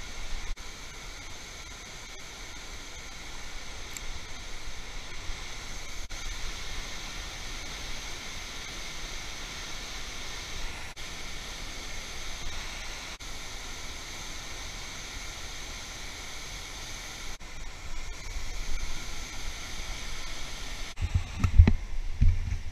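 Steady rushing roar of a waterfall below, heard as an even hiss with a low rumble underneath. Near the end come a few loud, low thumps.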